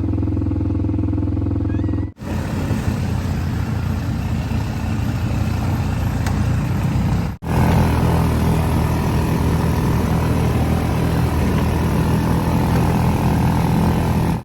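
A motor vehicle's engine running steadily, in three stretches joined by two abrupt cuts, about 2 seconds and 7.5 seconds in.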